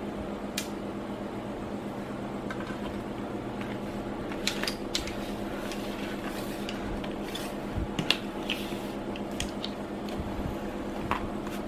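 Scattered light clicks and taps of paint brushes and paint tubes being handled and set down on a work table, over a steady low hum.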